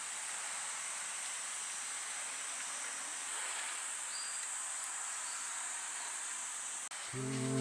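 Insects chirring in a steady, high-pitched chorus, with a brief faint chirp about four seconds in.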